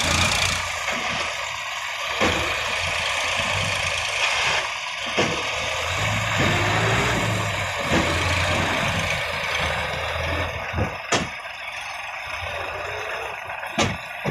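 Diesel farm tractor engines running near idle, with a handful of sharp clanks scattered through, more of them near the end.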